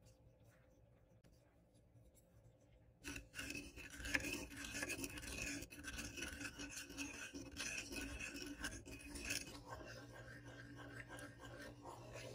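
Wooden spoon stirring granulated sugar and water in a saucepan: a gritty scraping and rubbing that starts suddenly about three seconds in, as undissolved sugar grates against the bottom of the pan. It eases somewhat near the end as the sugar dissolves into syrup.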